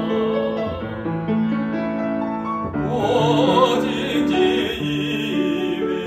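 A man singing a song in a full, classical style to piano accompaniment, his held notes wavering with vibrato, louder from about halfway through.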